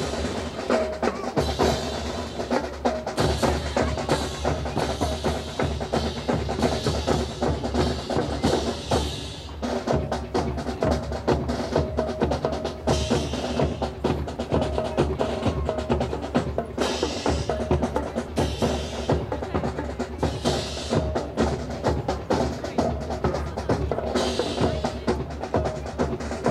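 Marching drums playing a steady drill cadence on snare and bass drum, with sharp wooden clacks mixed in throughout.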